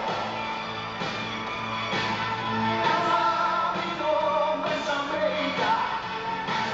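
Rock-pop music with a steady beat and sung vocals.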